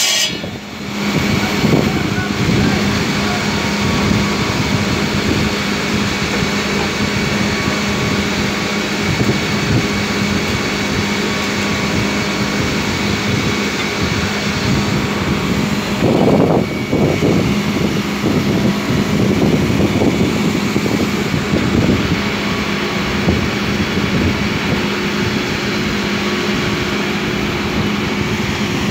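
Marble cutting saw running steadily with a constant hum, its blade grinding through a marble slab.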